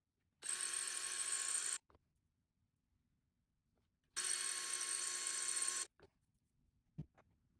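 Small power drill running in two short bursts of about a second and a half each, with a high, steady whine as the bit drills out the stripped screw head on a balisong pivot. A few light clicks follow near the end.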